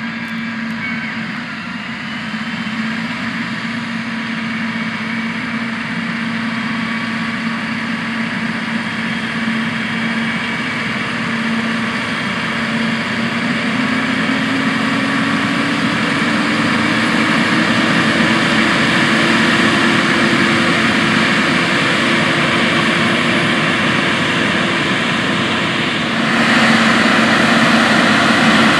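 Challenger MT775E rubber-track tractor's diesel engine running steadily as it pulls a loaded box manure spreader. The engine note rises a little in pitch partway through and grows louder as the tractor comes closer. A harsher hiss joins in near the end.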